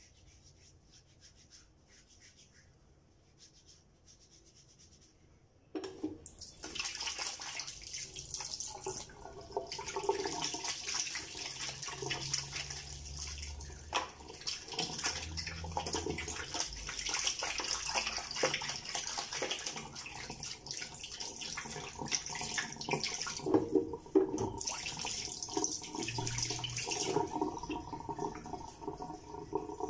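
Tap water running into a bathroom sink, turned on about six seconds in, with irregular splashing as the face is rinsed after a shave.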